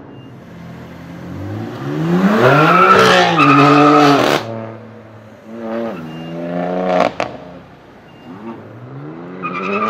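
BMW M4 F82's twin-turbo inline-six revving loudly through a Fi aftermarket exhaust. It makes three rising-and-falling revs, the longest and loudest about two to four seconds in, and sharp exhaust cracks and pops come as the revs drop.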